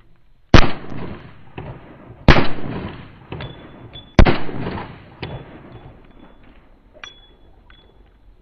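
Three handgun shots about two seconds apart, each followed by a long echoing decay, with a few lighter clicks in between and after.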